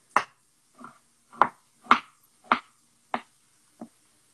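Chef's knife slicing raw chicken on a wooden chopping board. The blade knocks on the board seven times, about one every half second to two-thirds of a second, some strokes lighter than others.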